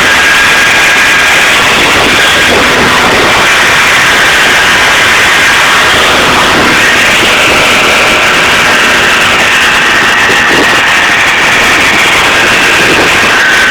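Moped engine running steadily, very loud and noisy with faint steady whines on top: a noise that the owner takes for bearing damage.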